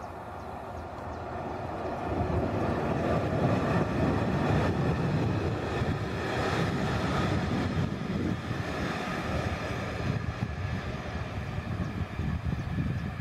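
Passenger train hauled by a ČD class 242 electric locomotive running past: the rumble of wheels on rail and the noise of the coaches. It builds to its loudest as the coaches go by, then eases slightly as the train draws away.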